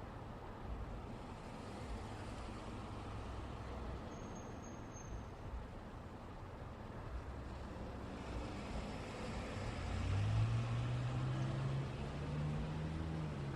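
Road traffic passing steadily, a continuous rumble of tyres and engines. About ten seconds in, a heavy vehicle's engine draws near with a low drone that becomes the loudest sound.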